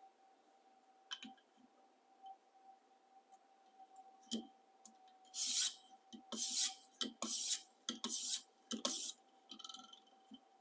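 Sharpening stone on a guided sharpening system drawn along the edge of a high-carbon stainless slicing knife. A few light clicks come first, then five quick scraping strokes in a row over the second half.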